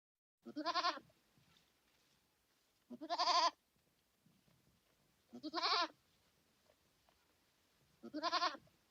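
Goat bleating four times, each a short quavering call of about half a second, spaced a couple of seconds apart.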